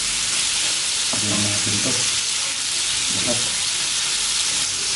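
Pork belly, shrimp and beef sizzling steadily on an electric tabletop grill pan, a constant high frying hiss.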